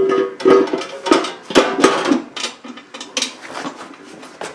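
Metal clanks and knocks, some ringing briefly, as a bell housing is handled and fitted against the back of an LS engine block. Several hits come close together in the first two seconds, then fewer and quieter ones.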